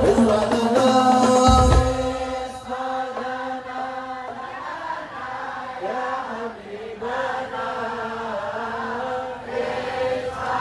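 Group of men chanting sholawat in long held notes, with hadrah frame drums beating for the first two seconds and then stopping, leaving the voices unaccompanied.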